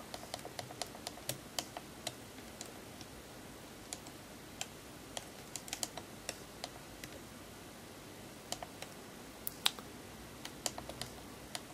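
Small plastic clicks from a Canon EOS 650D's control buttons being pressed. A quick run of presses comes in the first second or so, then scattered single clicks, faint against a low hiss.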